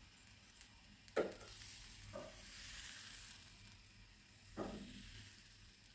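Appam batter sizzling faintly in a hot nonstick appam pan, with three light knocks, about a second in, two seconds in and near five seconds, as a lid is handled and set over the pan.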